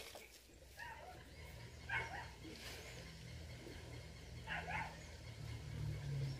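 A few short, faint animal calls, a couple of seconds apart, over a low steady hum.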